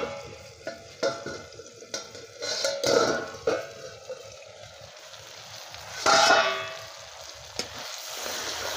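Steel lid and steel ladle clanking and scraping against an iron kadhai as a chicken and potato curry is stirred, with a loud ringing clang about six seconds in. The curry sizzles in the pan, and the sizzle grows louder near the end.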